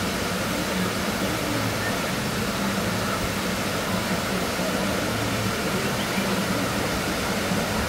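Steady rush of water from the water park's pools and falls, with a faint murmur of voices underneath.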